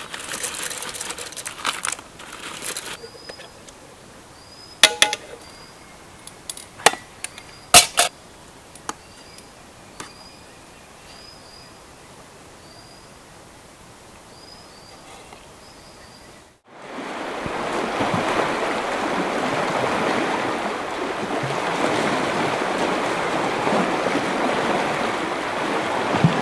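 Metal camp cookware and a spoon clinking and scraping in sharp knocks, while a bird gives short high chirps about once a second. About sixteen seconds in, the sound breaks off and a steady, louder rushing of wind and waves at a sea shore takes over.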